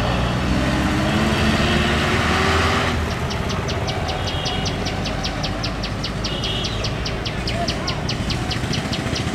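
Motorcycle and truck engines running as traffic passes. About three seconds in the sound changes to a quieter engine hum with a fast, even high ticking, about four ticks a second.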